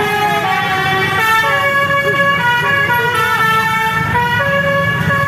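Basuri bus's telolet horn, a multi-tone musical air horn, playing a run of stepped notes and chords that change pitch every fraction of a second, over the bus's engine running.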